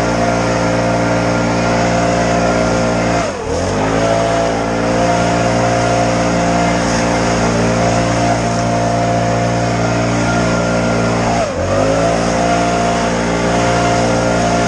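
Stihl BR 700 backpack leaf blower's two-stroke engine running steadily at high speed, blowing leaves. The pitch briefly drops and climbs back twice, about three seconds in and again about two-thirds of the way through, as the throttle is eased and reopened.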